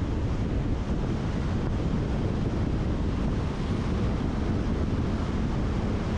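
Wind buffeting a bike-mounted camera's microphone during a fast bicycle descent: a steady, even low rumble of rushing air.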